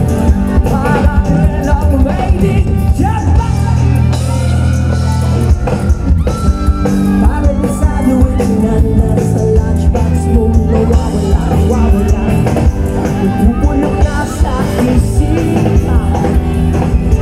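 Live rock band playing through a concert PA, a male lead singer singing over amplified guitars, bass and drums, heard from among the audience.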